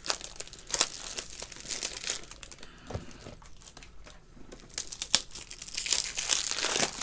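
Plastic crinkling with light clicks and snaps as trading-card packaging and plastic card holders are handled, dipping quieter for a moment midway.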